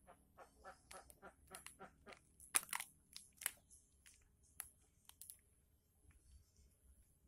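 Rotten, brittle bamboo and dry nest debris crackling and crunching as fingers break it apart at a stingless-bee nest: a quick run of small snaps, the two loudest a little after two and a half seconds and three and a half seconds in, thinning out to a few stray clicks after about five seconds.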